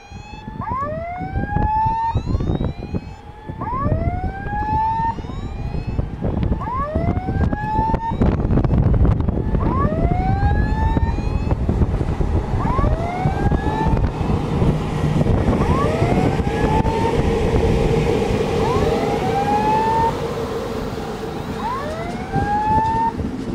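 Railway level-crossing warning signal sounding a short rising electronic tone about once a second, while an electric locomotive hauling a passenger train approaches and passes. The train's rumble grows louder from about eight seconds in.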